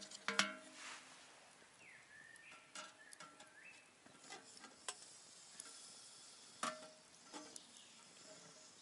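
A metal cooking pot and its wire handle clink against a titanium wood-burning firebox as the pot is set on it. A sharp ringing clink comes just after the start and another about three-quarters through, with lighter clicks between, over the faint crackle of the wood fire.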